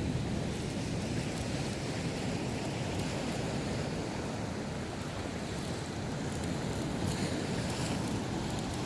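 Winter sea waves breaking and washing on the shore, a steady rushing surf, with some wind noise on the microphone.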